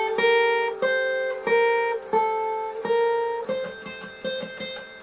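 Acoustic guitar, capoed at the 5th fret, picking a slow single-note melody on the top strings. Each note rings and fades before the next, with a quicker run of notes near the end.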